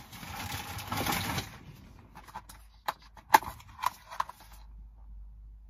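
Crinkly plastic packaging rustling for about a second and a half, then several sharp clicks and taps as a plastic sandwich pack is handled, the loudest a little past the middle.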